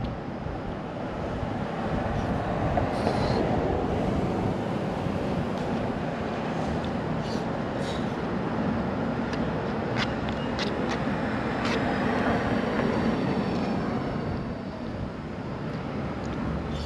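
Street traffic noise: a steady rumble that swells as vehicles pass, about three seconds in and again around twelve seconds, with a few light clicks in between.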